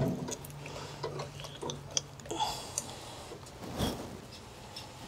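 Slippery wet clay being pressed and rubbed by hands on the head of a turning treadle pottery wheel while it is centered, with scattered small clicks and a dull knock about four seconds in.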